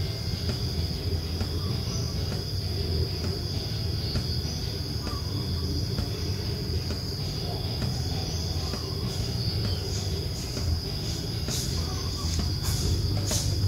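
Steady background noise: a low rumble under a constant high-pitched whine, with a few light clicks near the end.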